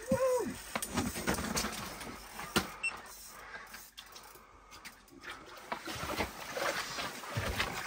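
Spinning reel being cranked to reel in a hooked fish, whirring and clicking unevenly, with rustling and small knocks around it.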